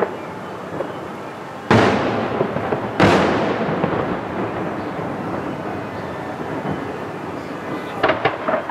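Aerial fireworks shells bursting: two heavy booms a little over a second apart, each followed by a long echoing rumble, then a quick run of sharp crackling pops near the end.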